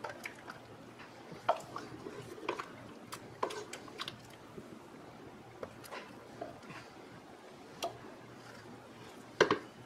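A measuring cup scoops wet, syrupy cooked fruit slices from a pot and tips them into a metal baking pan: soft squelching and dripping, with scattered light clicks and knocks of utensils against the cookware. The loudest knock comes near the end.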